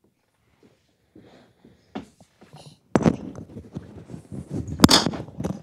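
Microphone handling noise: rustling, bumps and knocks close on the mic, with one loud sharp knock about five seconds in.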